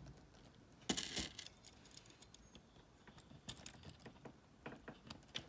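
Faint clicks and rattles of a small plastic LEGO chain and pieces being handled as the chain is clipped onto a minifigure: a cluster of clicks about a second in, then scattered light ticks.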